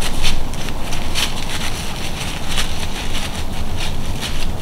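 Wind buffeting the microphone: a steady low rumble, with irregular rustling crackles over it several times a second.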